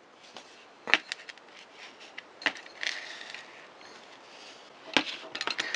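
Small sharp clicks and light handling noise of metal parts on a Daiwa 175 salmon reel as a little spring clip is fitted on top: single clicks about one, two and a half and five seconds in, then a quick run of clicks near the end.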